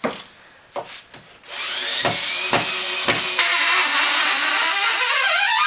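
A few sharp knocks, then a power tool starts about a second and a half in and runs steadily, with a few more knocks early in the run and its pitch rising near the end.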